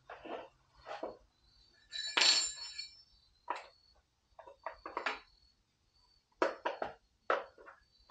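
Irregular clinks, taps and knocks of small metal parts and tools being handled, with one louder ringing metallic rattle about two seconds in.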